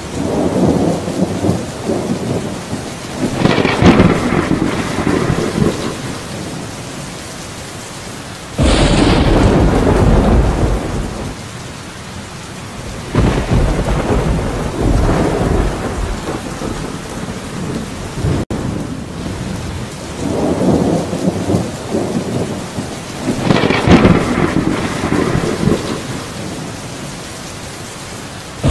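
Steady rain with several rolls of thunder swelling and fading; one breaks in abruptly about nine seconds in with a deep rumble.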